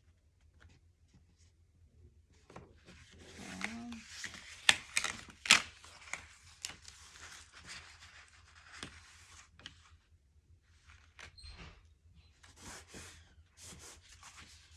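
Cardstock and adhesive being handled as a paper flap is lined up and stuck down: rustling, rubbing and tearing noises, with two sharp snaps about five seconds in.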